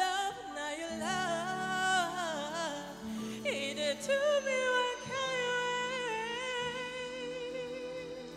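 Live love-song duet singing over sustained backing chords: wordless vocal runs, settling about five seconds in on a long held note.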